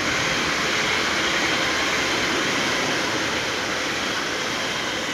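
Passenger train running past on the track: a steady noise of wheels rolling on rail.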